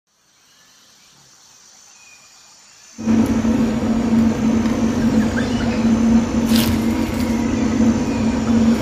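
Steady mechanical hum with a constant low drone, coming in suddenly about three seconds in after a faint start. A single short high click about six and a half seconds in.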